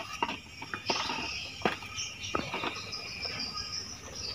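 Small metal hand trowel scraping and scooping potting soil in a plastic plant pot: a string of short, irregular scrapes and clicks. A steady high insect trill runs behind from about a second in.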